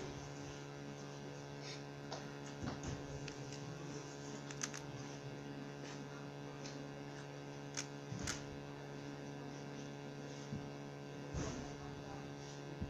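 A steady electrical hum, with a handful of separate clicks and taps of a computer keyboard, a few seconds apart.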